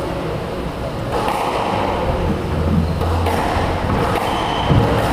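Squash rally: a few sharp knocks of the ball struck by rackets and hitting the walls, the first about a second in and the loudest near the end, with players' footsteps on the wooden court.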